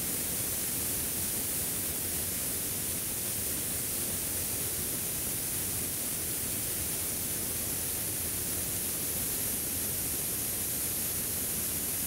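Compressed air hissing steadily out of a paint spray gun held at full trigger, fed through a drilled-out 1/4-inch quick-connect fitting as the compressor tank bleeds down toward 120 psi. An even, unbroken hiss.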